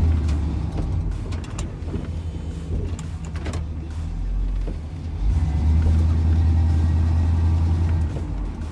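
K20 plow truck's engine running under load, a steady low drone that swells louder at the start and again from about five seconds in, with a few sharp clicks and knocks near the middle.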